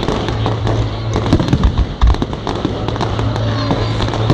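Fireworks display going off: a dense run of rapid crackling pops and bangs overlapping one another, with a steady low hum underneath.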